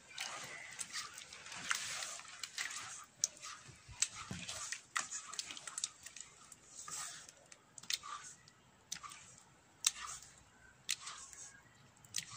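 A hand squelching and sloshing a watery white mixture in a stainless steel bowl, with irregular sharp clicks a second or two apart.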